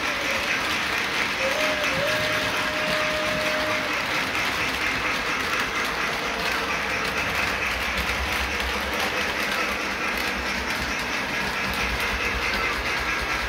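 Model freight train rolling along its track, a steady rattle and rumble of the cars' wheels over the rails. A faint steady tone that dips in pitch a few times stops about four seconds in.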